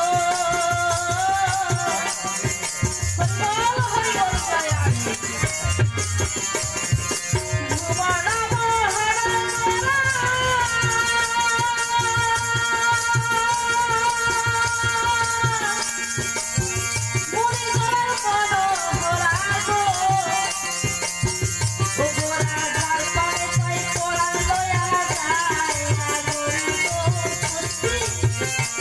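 Baul folk song: a sung or played melody with wavering, held notes over shaking rattle percussion and steady drum beats.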